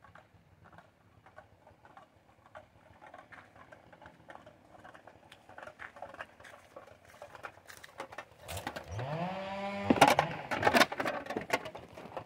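Footsteps crunching over burned forest floor and dry debris, growing louder as a person walks up close to the microphone. Near the end a short rising pitched sound is followed by several loud knocks and crunches right at the microphone as he steps past.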